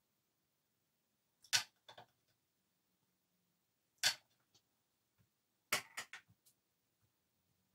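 Brief sharp taps of a watercolour brush knocking against the water container and the metal paint palette: a pair about a second and a half in, one at about four seconds, and a quick run of four or five just before six seconds.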